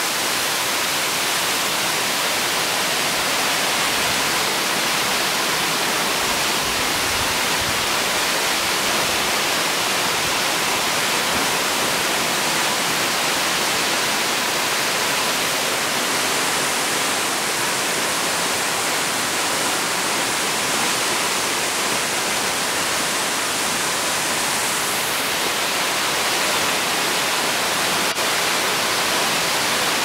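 Waterfall rushing steadily: a loud, even hiss of falling water.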